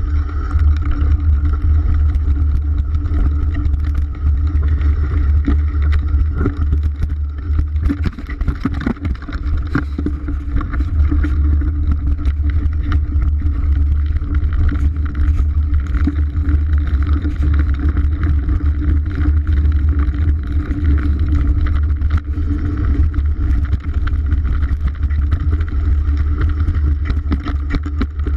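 Wind buffeting a GoPro Hero 3 camera's microphone on a mountain bike descending a dirt trail: a steady low rumble, with many small clicks and knocks of the bike rattling over rough ground.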